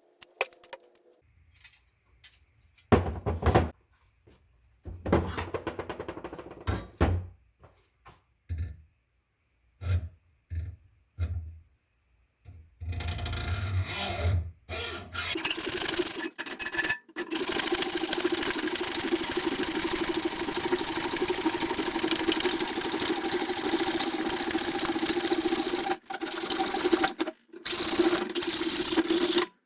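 Scattered knocks and clatter, then a steady loud rushing hiss with a low hum from the furnace's gas burner running, cut off abruptly a few times.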